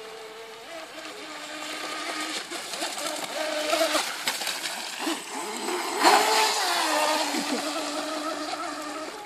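Electric RC mini boat's motor running at speed across the water, a whine that bends up and down in pitch as it turns. It grows loudest about four to seven seconds in as the boat passes close, then eases off.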